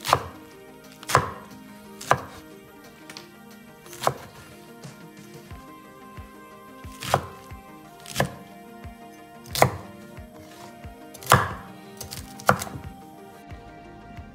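A large kitchen knife chopping stacked Malabar spinach leaves on an end-grain wooden cutting board. The blade knocks sharply into the wood about once a second at an uneven pace, over soft background music.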